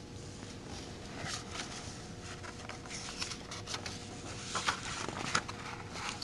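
A picture book's paper pages being handled and turned: a run of short rustles and light clicks, loudest near the end.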